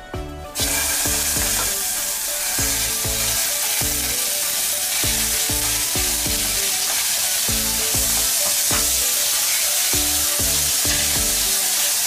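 Ground pork hitting hot oil in a nonstick frying pan and sizzling steadily as it is spread and stirred with a spatula; the sizzle starts abruptly about half a second in.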